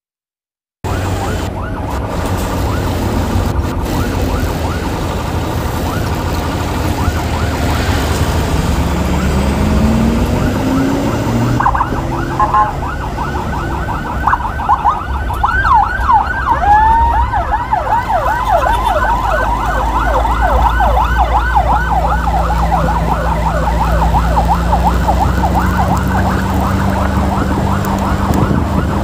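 Electronic emergency siren, starting suddenly about a second in and turning into a fast, repeated up-and-down yelp from about halfway through, over a steady low rumble of road and engine noise.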